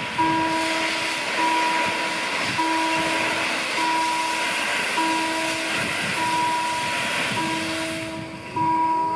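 Saxon IV K narrow-gauge steam locomotive 99 1608 starting away with its train: steam hissing from the open cylinder drain cocks, with exhaust beats underneath; the hiss fades out near the end. A warning bell rings steadily about once every second and a bit.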